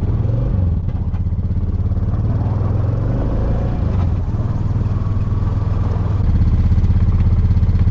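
ATV engine idling close by, a steady low chug that grows louder and steadier about six seconds in as the throttle picks up.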